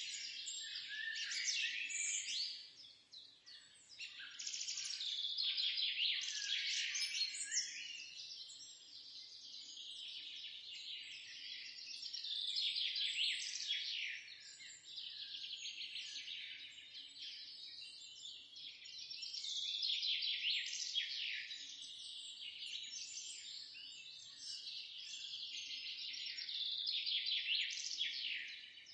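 Songbird chorus: many birds chirping and twittering at once in quick, high-pitched, overlapping calls that swell and fade in loudness.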